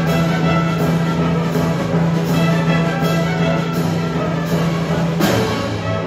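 Youth symphony orchestra playing live, strings to the fore, with a low note held steady under the texture until a new chord comes in about five seconds in.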